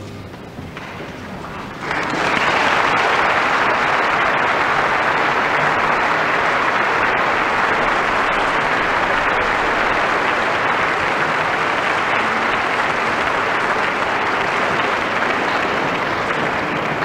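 Concert audience applauding, breaking out suddenly after a brief lull about two seconds in and going on steadily, heard through an FM radio broadcast taped on cassette.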